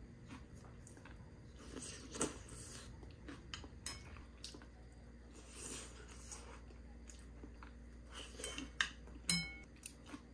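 Eating utensils tapping and clinking against dishes at a meal: scattered light clicks and knocks, with one clear ringing clink near the end.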